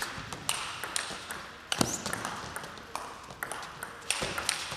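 Table tennis rally: the celluloid ball clicks sharply off the bats and the table in quick succession, the loudest hit about two seconds in, over a faint hall murmur.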